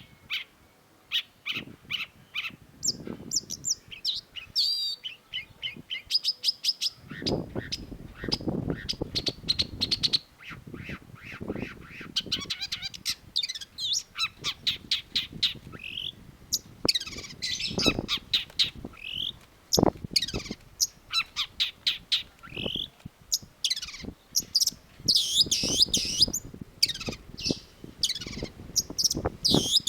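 Long-tailed shrike singing a fast, varied chattering song of short chirps and whistled notes in quick succession.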